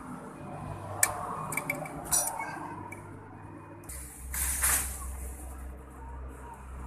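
Metal hand tools clicking and clinking against a small brush cutter engine as it is taken apart, with a few sharp clicks in the first half. About four seconds in, a low steady rumble starts and a short loud rushing noise follows.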